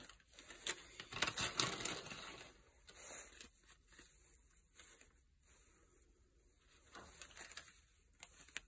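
Rummaging through loose small-engine parts and plastic parts bags: scattered clicks and rattles of small parts with crinkling rustles, and one sharp click near the end.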